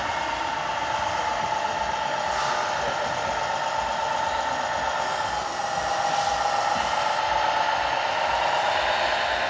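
Steady whine of radio-controlled model vehicle motors, dipping slightly in pitch about halfway through, with a high hiss joining for about two seconds.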